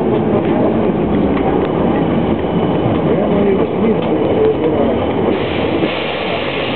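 Inside a city bus driving on a rough, patched concrete road: steady engine and road noise with rattles from the body, growing brighter and hissier about five seconds in.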